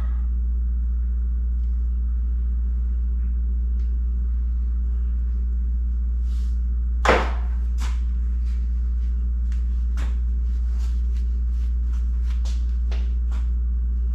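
Steady low hum with one sharp knock about seven seconds in, followed by a run of light clicks and taps of parts or tools being handled.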